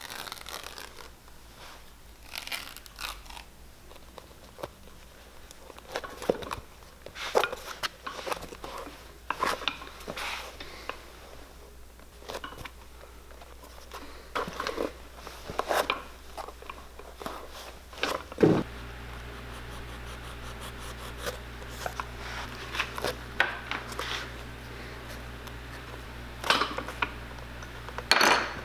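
Hand work at a shoemaker's bench: scattered clicks, scrapes and crinkles of tools and leather being handled. About two-thirds of the way through a click is followed by a steady low hum of a machine switched on, which keeps running.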